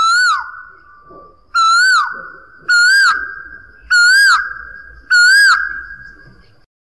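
Asian koel calling: five loud notes in a series, roughly one a second, each rising and then dropping in pitch, with the series edging slightly higher as it goes.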